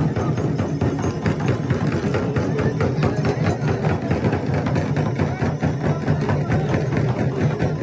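Shaman's frame drum (dhyangro) beaten with a curved stick in a fast, steady beat, with crowd voices murmuring behind it.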